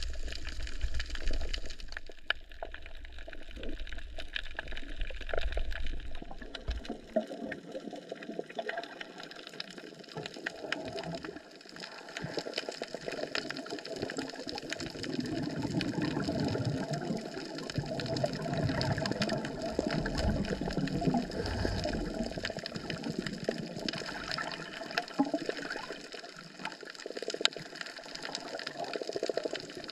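Water splashing and sloshing continuously, with many small splashes, as someone works in it, plus a low rumble during the first several seconds.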